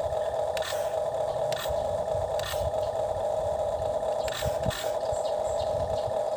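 A small toy motor whirring at a steady mid pitch, with scattered clicks and scrapes from the toy excavator and sand truck being worked.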